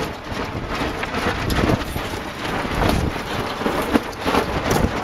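Wind buffeting the microphone on a small sailboat in a stiff breeze, a steady rumbling roar with irregular flaps and knocks from the J22's sails and rigging as the boat tacks.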